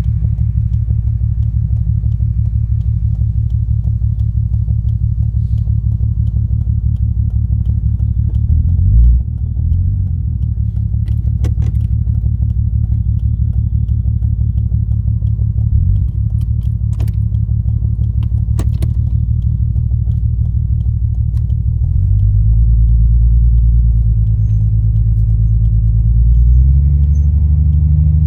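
Toyota Supra turbo's inline-six running through an HKS straight-through exhaust while driving, a deep low rumble with the throttle easing on and off and the engine note rising under acceleration in the last few seconds. The engine still has a misfire on one cylinder, which the owner suspects is a blocked injector.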